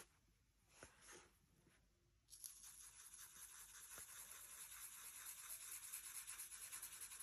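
Faint, rapid back-and-forth scratching of a pen coloring in a small circle on a paper sheet, starting about two seconds in.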